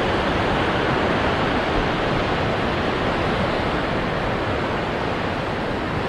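Ocean surf: a steady rushing wash of waves, with no single break standing out.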